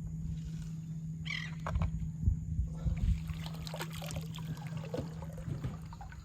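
Splashing and knocks as a baited crab line is pulled in and a dip net is worked through shallow water, with a few low thumps and scattered crackles, over wind rumbling on the microphone and a steady low hum.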